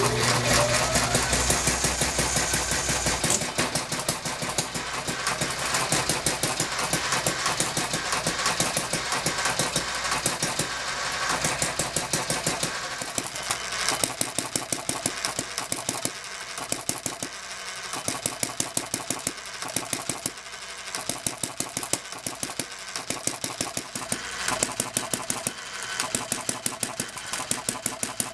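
Homemade camstopper hit-and-miss model engine running with a rapid, even clatter of firing and valve gear. A steady electric-motor hum sits under it for the first three seconds or so, then stops. The rhythm drops out briefly a few times, from hit-and-miss governing that the builder says still doesn't work quite right.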